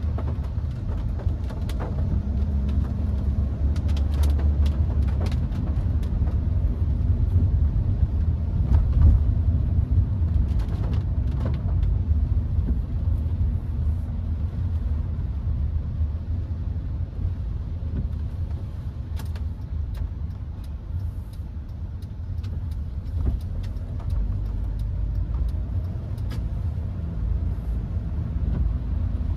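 Cabin noise of a Hyundai HB20 1.6 automatic driving on a wet road: a steady low rumble of engine and tyres, with a few light clicks and taps scattered through it.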